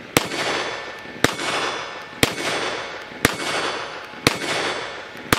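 Walther WMP pistol firing .22 Magnum (.22 WMR) rounds: six shots about a second apart, each followed by a fading echo.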